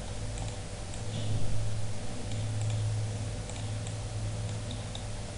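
Faint computer mouse clicks, scattered small ticks, over a steady low hum.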